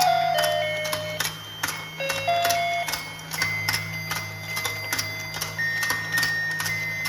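Battery-powered toy fishing game running: a steady motor hum with regular clicking, about two or three clicks a second, under a simple tinny electronic tune of single held notes.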